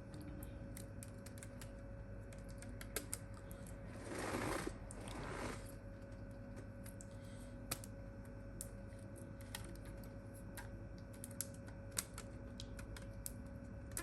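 Scattered light clicks and taps from handling the phone and rubber bands on the workbench, with a short rustle about four seconds in, over a faint steady hum.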